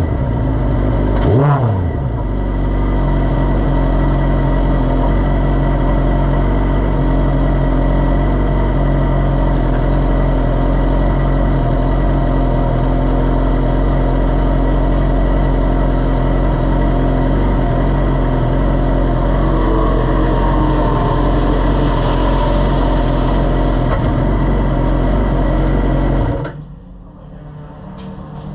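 F1000 race car's 1000 cc motorcycle-derived engine, heard from the onboard camera, gives one quick rev blip just after the start, then idles steadily. The sound drops off abruptly near the end.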